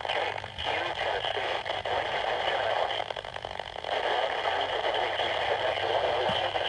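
Radio static from a NOAA Weather Radio receiver: a steady crackling hiss with no voice coming through, thinning briefly about half a second in and again near four seconds.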